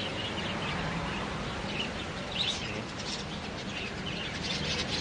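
Many caged birds in a bird shop chirping and calling over a steady background hiss, short high chirps scattered throughout and getting busier near the end.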